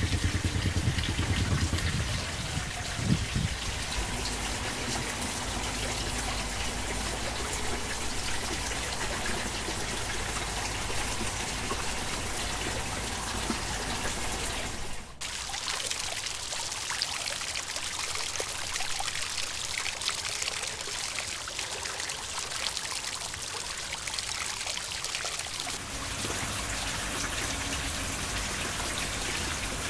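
Water pouring and trickling steadily into a cement garden aquarium, with a brief break about halfway through.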